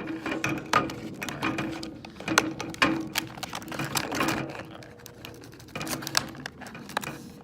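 Plastic blister packaging crackling and snapping in quick irregular clicks as it is cut and pried at with a blade that is not sharp enough.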